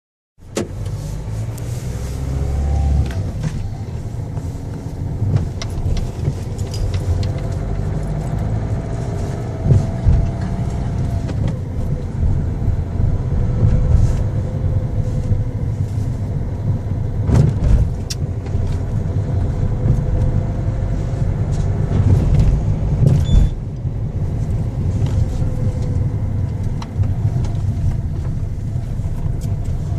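Car engine running with a heavy, steady low rumble, a faint whine that slowly rises and falls, and a few sharp clicks; a strange engine noise that worries the owner.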